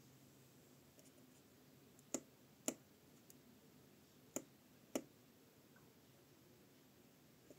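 Four sharp clicks of a push button, in two pairs about half a second apart, over near silence, as the instrument cluster's menu is stepped open and then closed.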